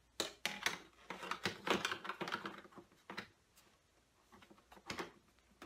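Irregular light plastic clicks and short rustles as the unboxed keyboard piano and its music stand are handled, busy for about three seconds and then a few scattered clicks.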